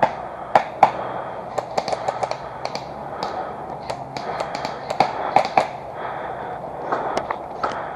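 Airsoft guns firing in scattered single shots and short clusters of sharp pops and snaps.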